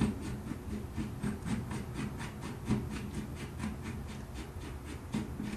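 Steel flash hider being screwed onto a threaded rifle muzzle, with a steady run of small metallic clicks, about four a second.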